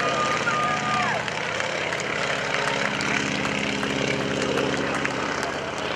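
PT-17 Stearman biplane's seven-cylinder Continental radial engine and propeller running steadily through a low aerobatic pass, the drone shifting in pitch about two seconds in. A high steady whistle sounds over it for about the first second, then drops away.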